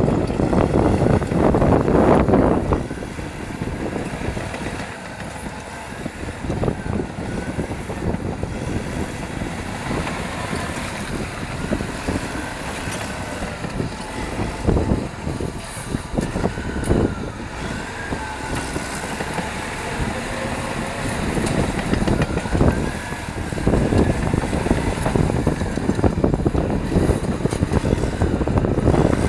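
Caterpillar D6R LGP crawler dozer working, its diesel engine running with knocks and clatter from the tracks and pushed stone. Louder at the start, it drops back after a couple of seconds and builds up again near the end.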